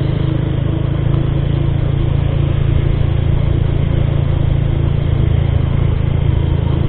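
Bajaj Pulsar motorcycle's single-cylinder engine running steadily while the bike rides along, with a steady rush of wind and road noise over it.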